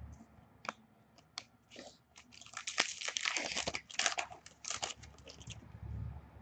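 Foil wrapper of a hockey card pack crinkling and tearing as it is opened by hand, after a few light clicks of cards being handled.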